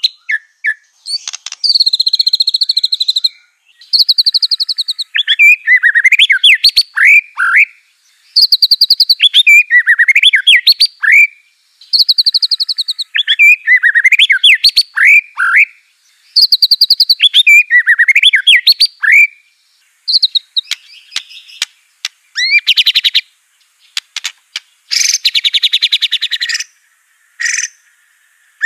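White-rumped shama (Aceh murai batu) singing: a fast buzzy rattle followed by a run of swooping whistles, the phrase repeated four times about every four seconds, then short sharp notes and harsh buzzy rattles toward the end.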